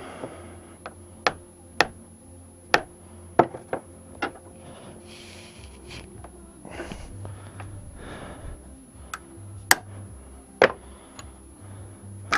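Metal hand tools knocking and clinking against each other and the workbench as they are picked up and put down: about a dozen sharp, irregular knocks, with a few short bursts of rustling as things are shifted about.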